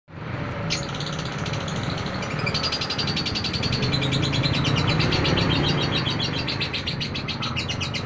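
Caged lovebird chattering: a single sharp chirp, then from about two and a half seconds in a long unbroken run of very rapid high chirps, over a low steady hum.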